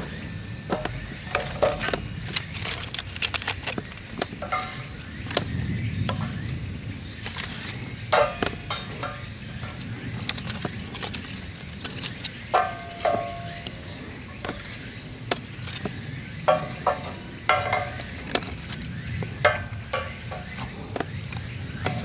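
Split hardwood logs and thin wooden kindling sticks knocking and clattering as they are laid by hand in a fire pit: short, sharp knocks at irregular times, some with a brief hollow ring. A steady high-pitched hiss runs underneath.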